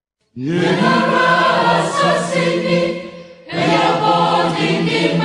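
Choral music: a choir singing in two phrases, the second beginning about three and a half seconds in, over a steady low held note.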